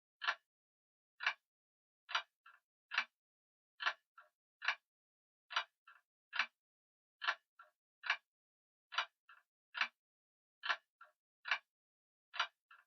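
Grandfather clock ticking steadily, a sharp tick a little under once a second, every other tick followed closely by a fainter lighter click.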